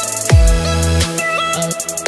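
Background electronic music with a steady beat: a deep bass note slides down in pitch about a third of a second in, under held synth tones and quick hi-hat ticks.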